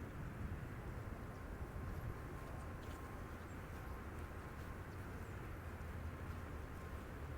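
Steady low rumble and hiss of background ambience, with a faint steady tone and a few faint high ticks.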